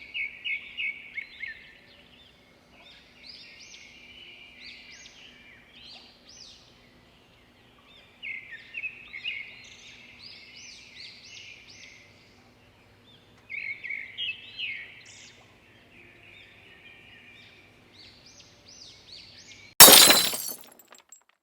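A songbird singing in short phrases of quick repeated chirps, with pauses between phrases. Near the end comes a single sudden loud crash that dies away within about a second.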